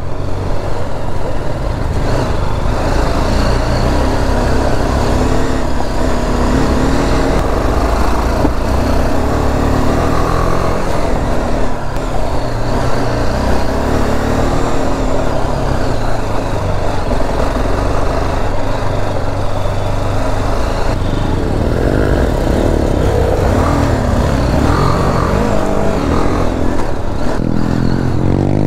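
Dual-sport motorcycle riding along a dirt trail, its engine running continuously with the note rising and falling as the throttle changes.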